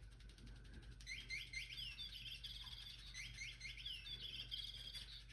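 Touch-activated flapping bird cat toy playing its recorded sandpiper chirp: a high chirping, trilling phrase that starts about a second in and plays twice over, nearly identically.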